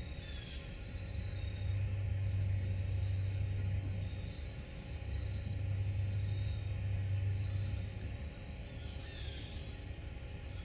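A low, steady rumble that swells twice, like an engine or traffic, with a few faint high bird calls over it near the start and about nine seconds in.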